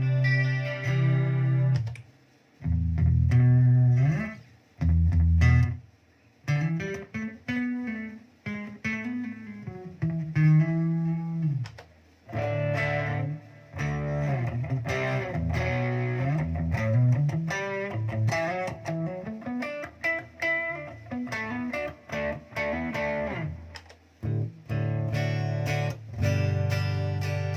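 Electric guitar played through a Zoom G1Xon multi-effects pedal: low riffs and melodic lines with sliding, bent notes, stopping briefly several times between phrases.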